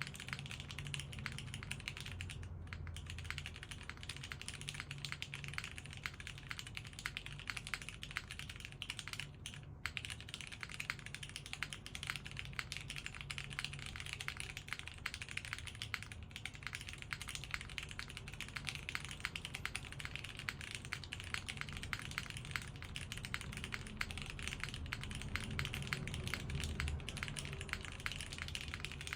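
Steady, rapid typing on a custom 80% mechanical keyboard with modded Cherry MX Hyperglide Brown tactile switches, GMK keycaps, a polycarbonate plate and a foam-filled case, heard through a phone microphone. Dense keystroke clacks, broken by a couple of brief pauses.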